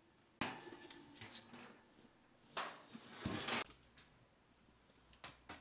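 Metal baking sheet sliding onto an oven's wire rack: a short scraping rattle of metal on metal about half a second in. About two seconds later comes a louder burst of clatter and a few clicks as the tray is handled, then a couple of faint clicks near the end.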